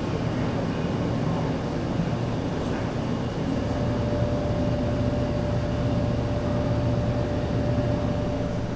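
B&W 2000 eight-cylinder double-acting two-stroke opposed-piston diesel engine running, a steady heavy mechanical rumble. A steady high whine joins it about three and a half seconds in.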